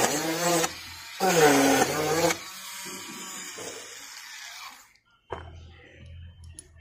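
Homemade drill driven by a 1000 kV brushless motor, revved in two short bursts while drilling into wood, its whine swooping down in pitch and levelling off each time. It then runs on more quietly and stops about five seconds in, leaving a faint low hum.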